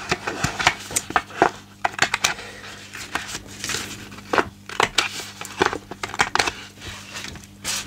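Handheld corner rounder punch clicking shut on the corners of a sheet of patterned craft paper, a series of short sharp snaps spread through the stretch, with paper rustling as the sheet is handled and turned.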